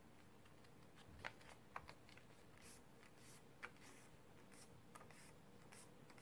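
Faint rustling and crinkling of a square sheet of paper as it is folded in half, creased and unfolded by hand, with three sharper crinkles in the first four seconds.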